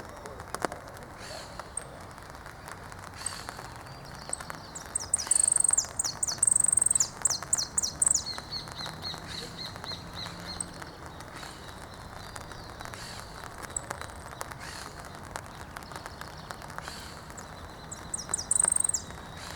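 Saffron finch singing. About five seconds in comes a burst of rapid, high chirping notes that runs into a lower, even trill, and a shorter high phrase follows near the end, with single high chips in between.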